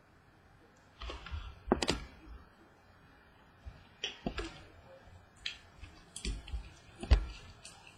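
2014 Bowman Sterling baseball cards being handled and flipped through, giving a run of sharp, irregular clicks and taps.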